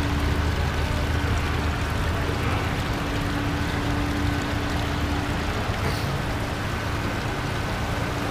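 Small rock waterfall spilling into a koi pond: a steady, even splashing rush of falling water, with a faint steady hum underneath.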